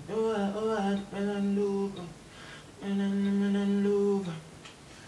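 A man humming a wordless melody into a microphone: two phrases of long held notes, the first opening with a short wavering run.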